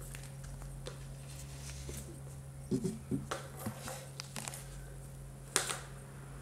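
Plastic balls clicking and knocking in a three-tier plastic cat track toy as a kitten bats at them: a run of clicks about three seconds in and one sharp clack near the end, over a steady low hum.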